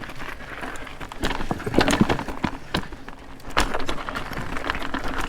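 Mountain bike clattering over rocky ground: irregular knocks and rattles, with a steadier rush of noise building from about halfway in.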